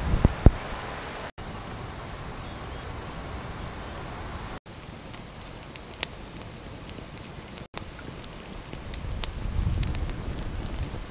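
Outdoor air and wind hiss at first. From a few seconds in, a wood cooking fire crackles with many scattered sharp pops.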